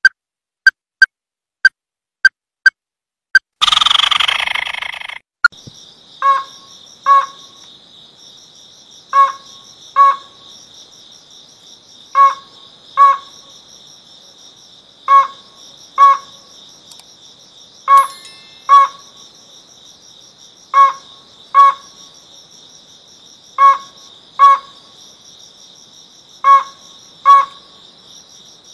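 Ruddy-breasted crake calling: short, hard notes given in pairs, one pair about every three seconds, over a steady high drone of crickets. It opens with a quicker run of evenly spaced notes, then a brief burst of noise about four seconds in.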